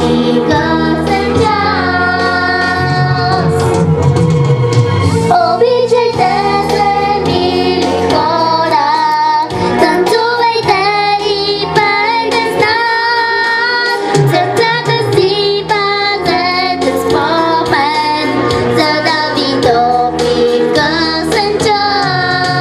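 A young girl singing a song into a microphone, amplified, over an instrumental backing track.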